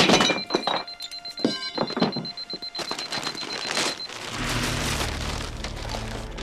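A pager beeping with a steady high tone while wood is smashed and splintered in sharp cracks. The beeping and cracking stop about four seconds in as low dramatic music comes in.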